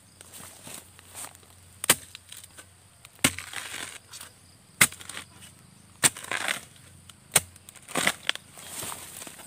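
Long-handled metal digging spade striking and chopping into the base of a bamboo shoot, about six sharp blows roughly a second and a half apart, several followed by a brief crunch as the fibrous shoot splits.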